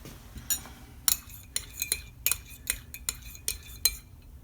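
A teaspoon stirring tea in a ceramic mug, clinking against the sides in a run of sharp ringing clinks, two or three a second.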